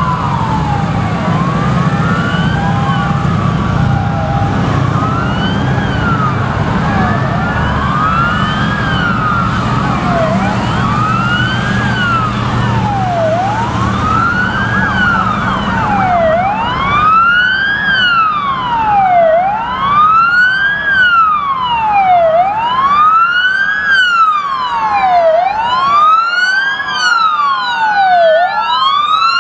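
Several police sirens wailing together, each rising and falling every two to three seconds and overlapping out of step. A low engine rumble from police motorcycles passing sits under the sirens in the first half and fades. The sirens grow louder and clearer in the second half as patrol cars approach.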